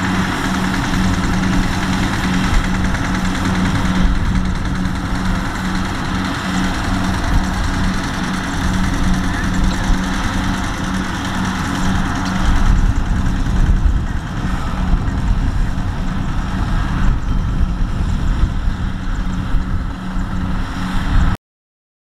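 Kubota rice combine harvester's diesel engine and machinery running steadily under load while it cuts rice, a constant hum with a low rumble that grows heavier about halfway through. The sound cuts off abruptly just before the end.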